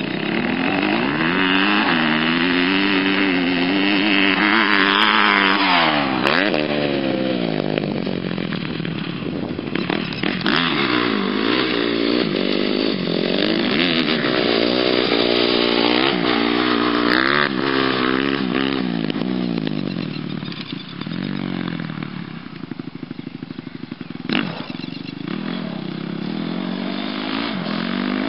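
Dirt bike engine revving up and down over and over as it is ridden, its pitch rising and falling with each twist of the throttle. It grows quieter for a few seconds past the middle as the bike moves farther off, then comes back up.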